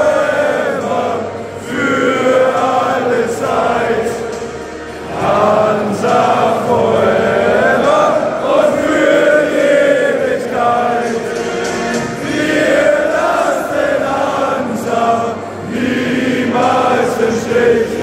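Large football stadium crowd singing together in one loud chorus, thousands of voices carrying a melody.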